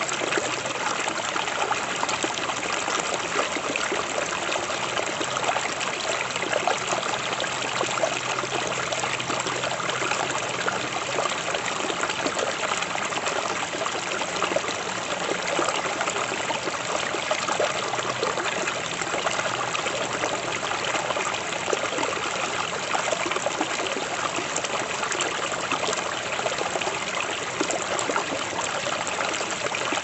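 Shallow forest stream spilling over a fallen log into a small pool, a steady babbling, splashing flow.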